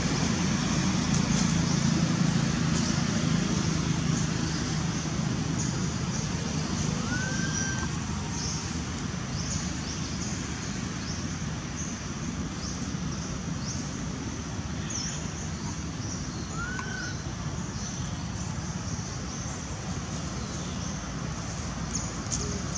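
Outdoor forest ambience: a steady low rumble that eases off over the first several seconds, with a constant haze of high, short chirps. A bird gives a short whistled note twice, about seven and seventeen seconds in.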